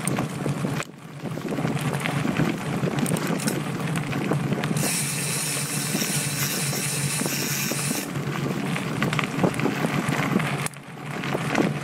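Mountain bike riding on a dirt trail, heard from a camera on the handlebars: steady tyre and wind noise with frequent small rattles. The hiss is brighter for a few seconds in the middle, and the level drops briefly about a second in and again near the end.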